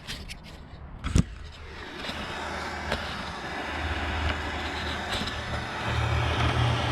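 Handheld propane torch burning with a steady hiss and a low rumble, heating the supercharger pulley to help free it. A sharp click about a second in, then the flame noise comes in and slowly grows louder.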